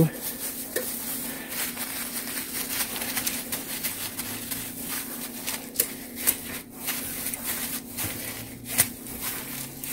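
A gloved hand rubbing mayonnaise onto raw chicken pieces on paper: the disposable plastic glove and the paper rustle and crinkle, with a few sharp crinkles in the second half. A steady low hum runs underneath.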